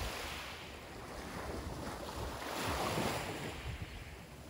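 Small waves washing against shoreline rocks, a steady hiss that swells a little around the middle, with wind on the microphone.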